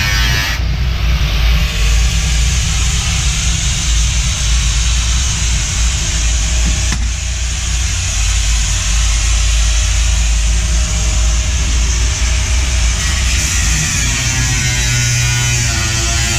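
Electric angle grinder cutting the sheet-metal roof of a car: a steady, loud grinding hiss over a low rumble. Near the end a pitched whine from the grinder comes through again.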